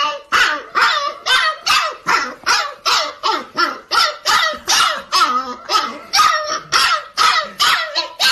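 Husky puppy barking in quick high yips, about three a second, each one dropping in pitch.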